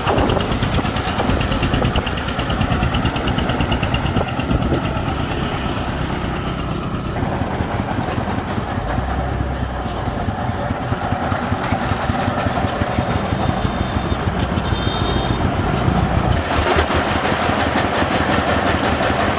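A vehicle engine runs steadily throughout, with a fast, even pulsing beat. The sound grows brighter about three-quarters of the way through.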